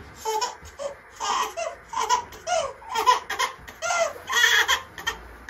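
Four-month-old baby vocalizing in a run of short, high-pitched sounds, about two a second, each rising and falling in pitch.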